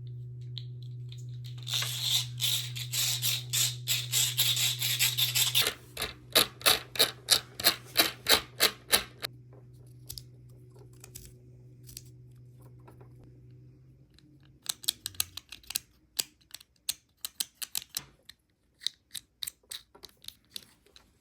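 Small plastic fidget toys being worked by hand: a run of fast rattling clicks, then single sharp clicks about three a second, then scattered bursts of clicks. A steady low hum sits underneath and fades out partway through.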